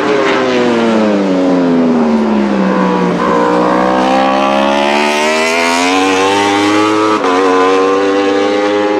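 Yamaha YZF-R1 World Superbike's inline four-cylinder engine with Akrapovic exhaust on track. The revs fall for about three seconds, then climb hard under acceleration, with a brief break about seven seconds in as it shifts up a gear.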